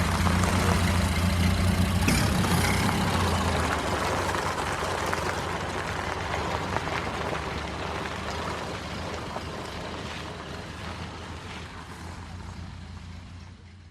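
Antique car engine running with a low, steady hum as the car drives away, its sound fading gradually into the distance.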